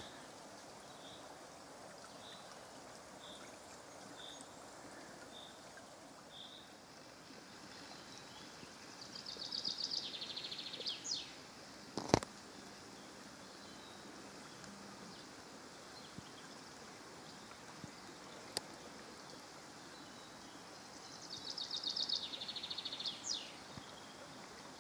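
Faint babbling of a small woodland stream with songbirds: a run of short repeated high notes, then two brief trilled song phrases, each ending in a falling flourish, about twelve seconds apart. A single sharp click near the middle.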